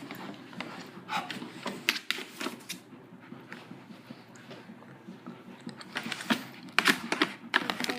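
A dog pawing and scratching to get its bone out of where it has been shut in: irregular clicks, taps and scrapes of claws, thickest a second or two in and again near the end.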